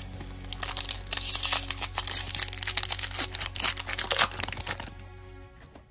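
Foil wrapper of a Pokémon booster pack crinkling and tearing as it is opened by hand. Dense crackling fades out about five seconds in.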